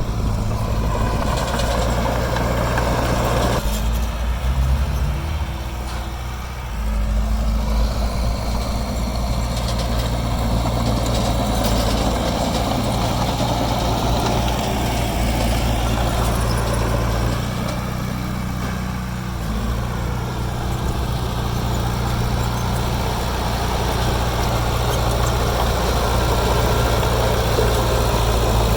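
Heavy diesel engine of earthmoving machinery running in a steady low drone, its pitch shifting a few times, with a brief drop in loudness about six seconds in before it picks back up.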